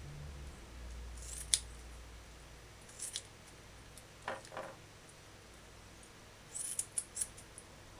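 Kitchen scissors snipping through raw chicken gizzards, cutting them in half: a sharp snip about a second and a half in, another near three seconds, and a quick run of several snips near the end. Two softer, duller sounds come in the middle.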